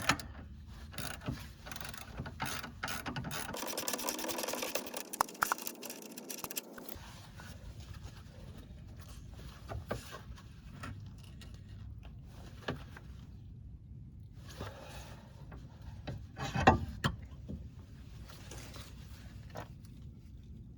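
Hand tools and metal parts clinking and knocking during work on a car's rear shock absorbers: scattered clicks, a few seconds of dense rattling about four seconds in, and a sharp louder knock near the end.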